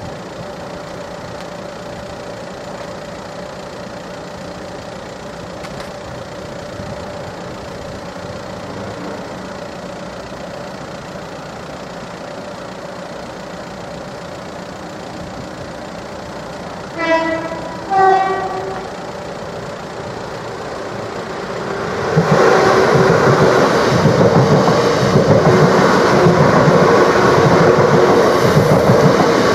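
A Class 465 Networker electric train sounds two short horn notes a second apart, the second a little higher, about two-thirds of the way in. A few seconds later it arrives and passes close by, loud, with wheel and rail noise that continues to the end.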